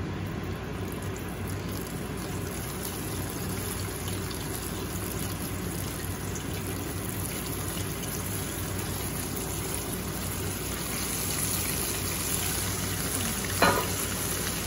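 Smelt coated in tapioca starch sizzling as they deep-fry in a pot of hot oil. It is a steady hiss that grows a little louder and brighter in the last few seconds, with one sharp knock near the end.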